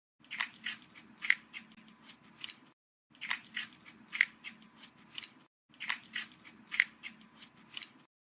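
Rabbit chewing, a run of quick, crisp crunching clicks. The same stretch of about two and a half seconds plays three times over.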